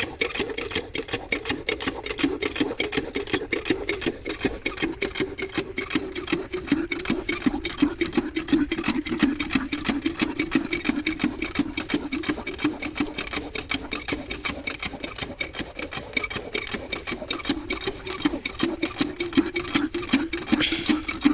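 Diesel engine of a water pumpset running steadily, with a rapid, even firing beat. Its note sags slightly a few seconds in and then holds.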